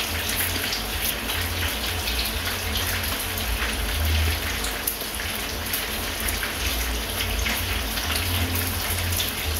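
Fish frying in a pot of hot oil: a steady sizzling hiss, with a low rumble underneath.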